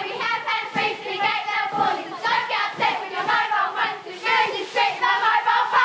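A cheerleading squad of girls chanting a rhythmic cheer in unison: 'when calling, we're very discreet with our mobile phones!'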